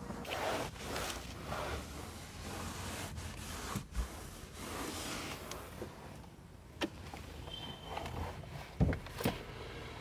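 Microfiber cloth rubbing and wiping over hard plastic car interior trim, in soft swishes, with a few light knocks as the hand bumps the panels.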